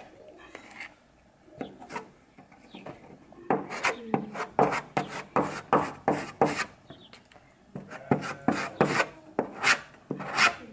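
Small putty knife scraping and spreading a wood filler paste of sawdust mixed with wood glue into the cracks of a wooden door, in quick repeated strokes, about two to three a second, that start about three seconds in after a few quieter scrapes.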